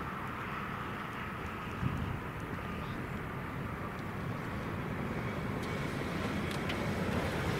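Airbus A380 jet engines (Engine Alliance GP7200 turbofans) running as the airliner rolls out along the runway after touchdown: a steady low rumble with a faint whine, growing slowly louder as the aircraft approaches.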